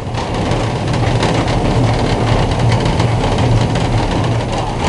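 Steam tank locomotive 'Niedersachsen' running along the line, heard from inside its cab: a loud, steady rumble and rattle of the wheels and running gear.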